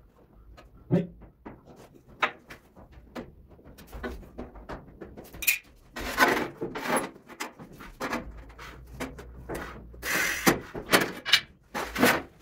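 Scattered knocks, clicks and short scrapes of a large ceramic tile and tools being handled on the floor, with a louder burst of scraping and several sharp clacks near the end.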